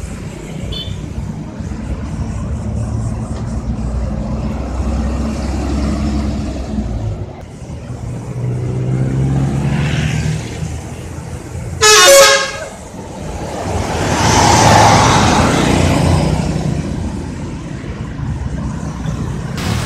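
Bus traffic rumbling past, with one short, loud blast of a bus's multi-tone telolet horn about twelve seconds in, followed by the rushing noise of a bus going by.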